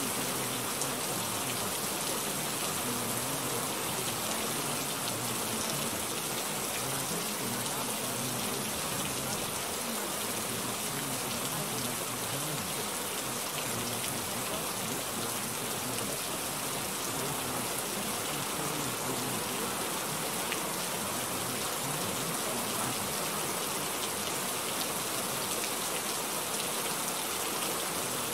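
Steady rain, an even hiss of falling rain with no breaks or changes in level.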